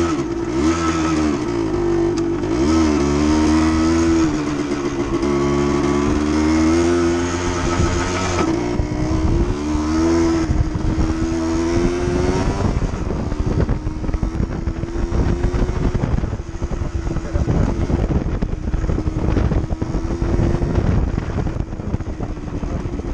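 Suzuki TSR dirt bike engine running under way, its pitch rising and falling with the throttle over the first half. In the second half the engine note is fainter, under a rougher rush of noise and many small knocks.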